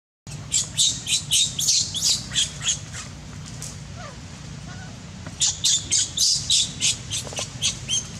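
A bird calling in quick runs of short, high-pitched squawking notes, about four a second. One run starts about half a second in and lasts about two seconds, and a second run starts about five and a half seconds in.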